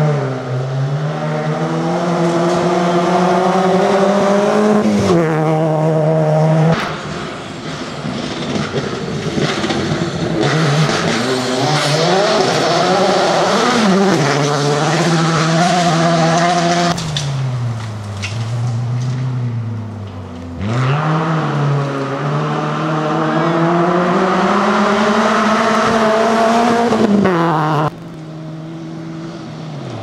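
Rally car engines revving hard, rising and falling with each gear change and lift as several cars pass in turn on a gravel stage. The sound switches abruptly from one car to the next several times.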